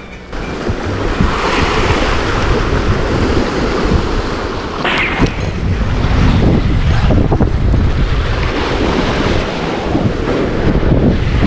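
Sea surf washing against a rocky shore, with wind buffeting the microphone in heavy low rumbles.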